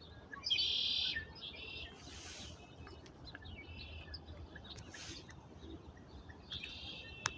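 Red-winged blackbirds singing in a marsh: a loud trilled song about half a second in, another near the end, and scattered fainter chirps between.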